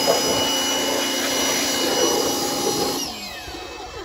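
Electric pressure washer running, its motor and pump whining steadily while the water jet sprays onto a greasy vehicle frame. About three seconds in the trigger is released and the motor winds down with a falling whine.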